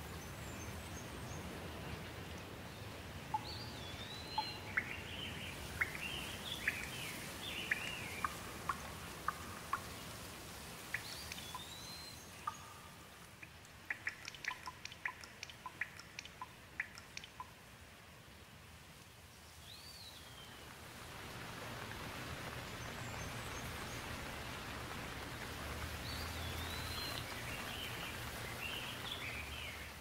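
Steady rain falling, with birds chirping through it. In the middle stretch the rain is quieter and a run of sharp drips and splashes stands out, then the rain swells again.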